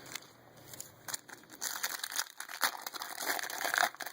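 Foil wrapper of a Bowman Chrome baseball card pack crinkling as it is handled and torn open, an irregular run of crackles and rustles.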